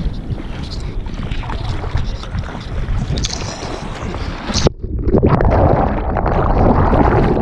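Ocean water splashing against a waterproof camera held at the surface while surfing, with wind on the microphone. A little over halfway through, the camera plunges into breaking whitewater and the sound turns suddenly muffled: churning water and bubbles heard from just under the surface.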